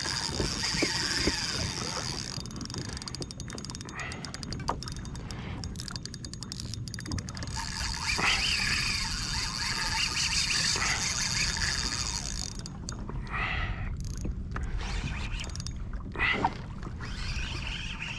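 Fishing reel drag buzzing steadily as a large drum pulls line off against it, stopping suddenly about two-thirds of the way through, with a few short knocks and rustles after.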